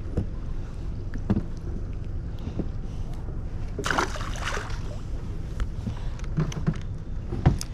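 Boat on the water: a steady low rumble, with a few sharp knocks and a brief hissing rush about four seconds in.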